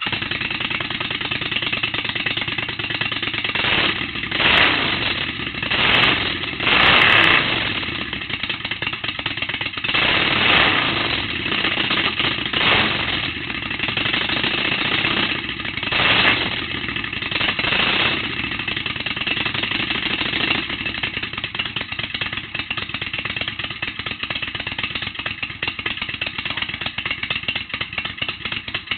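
Kawasaki VN800 V-twin engine running through short heat-wrapped exhaust pipes. It is revved several times in the first twenty seconds, then settles into a steady, pulsing idle.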